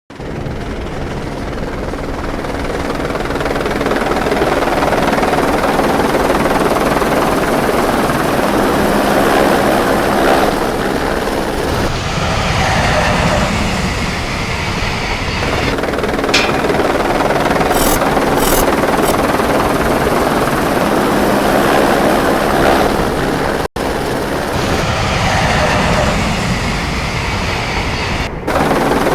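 Loud added sound effects: a steady, rumbling mechanical drone, with a few short sharp clicks past the middle.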